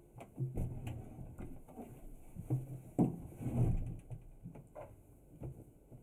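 Irregular soft thumps, knocks and rustling of people moving about and stepping in a narrow hallway, the loudest thumps about three seconds in.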